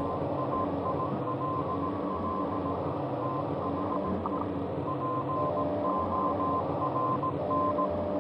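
Anxiety-ambience sound effect: a dark, steady low drone with a thin high tone pulsing on and off over it.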